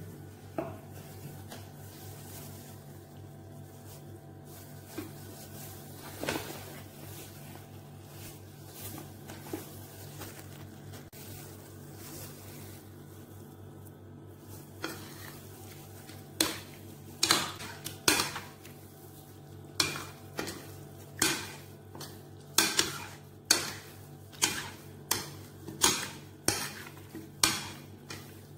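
Metal spoon knocking and scraping against a ceramic plate while mixing raw chicken pieces in their marinade: a few faint clicks at first, then from about halfway a run of sharp knocks, about one a second. A steady low hum sits underneath.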